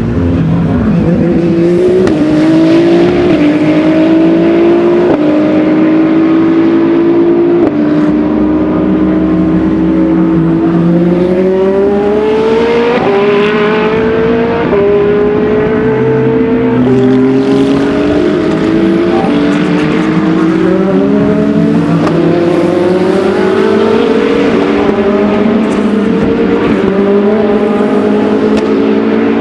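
Endurance racing cars accelerating hard on track. Their engine pitch climbs through each gear and drops sharply at every upshift, with several cars overlapping and passing throughout.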